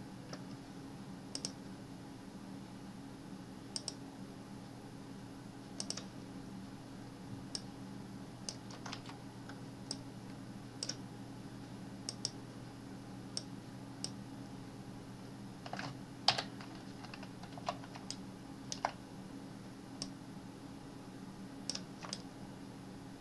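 Computer mouse clicks and key presses, short sharp clicks at irregular intervals, about one a second, a few in quick pairs. Under them runs a steady low hum.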